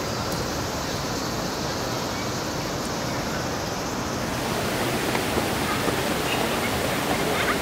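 Steady outdoor background noise, an even rush with no distinct events, changing in tone about four seconds in.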